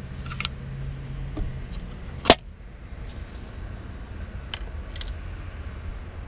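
An embossed metal trinket box being handled, with light clicks and taps and one sharp click about two seconds in as its hinged lid snaps shut, over a low steady background rumble.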